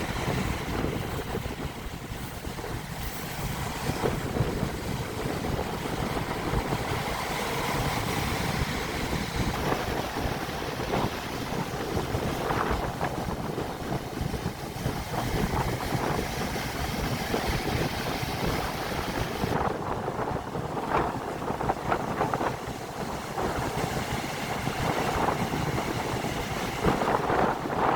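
Stormy Black Sea surf: waves breaking and washing ashore, with strong wind buffeting the microphone. A few waves break louder, about twelve seconds in, after about twenty seconds, and near the end.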